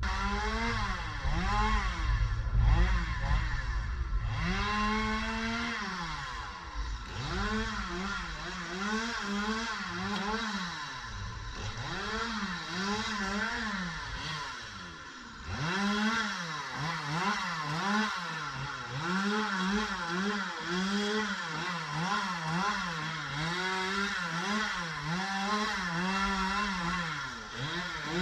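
Two-stroke chainsaw running and cutting, revving up and dipping again and again, its pitch rising and falling every second or two.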